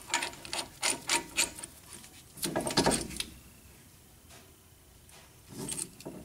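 Caliper windback tool being turned by hand to screw a rear brake caliper piston back into its bore. A quick run of clicks in the first second and a half, then a louder clatter about two and a half seconds in, and a short scrape near the end as the tool is handled.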